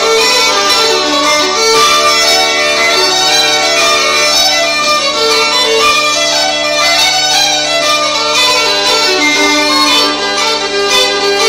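Fiddle and uilleann pipes playing an Irish traditional dance tune together in unison, over a steady low drone from the pipes.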